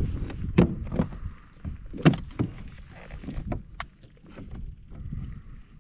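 Irregular knocks and clicks of fishing gear and a landing net being handled against a plastic kayak hull, over a low rumble.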